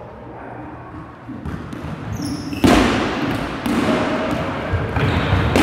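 Dodgeballs being thrown and bouncing on a hardwood gym floor, with players' voices. It starts suddenly with a loud impact about halfway through, and the hits and commotion carry on to the end.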